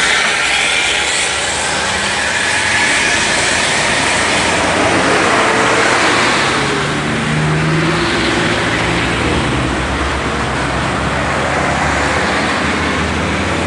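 Heavy road traffic passing close by: trucks, buses and small pickups driving past with steady engine and tyre noise. Engine notes come and go as each vehicle passes.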